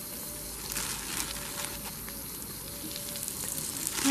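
Chicken nuggets sizzling and crackling in hot sunflower oil in a frying pan as more are laid in one by one: a steady hiss with scattered pops.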